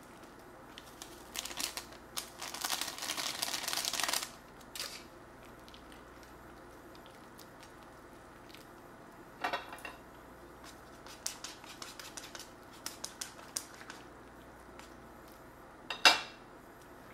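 Paper packet of tamarind powder rustling for about three seconds as it is shaken out into a ladle. Then light clinks of a ladle and chopsticks in a pot of soup being stirred, with one sharp clank against the pot near the end.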